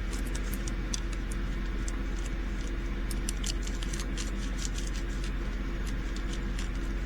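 Scattered small clicks and crinkles from handling small plastic bags of diamond-painting drills, over a steady low hum.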